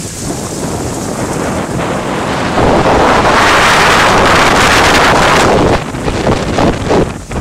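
Heavy rainstorm with wind: a steady rush of noise, and a strong gust buffeting the microphone from about two and a half seconds in to nearly six seconds, then easing into uneven fluttering.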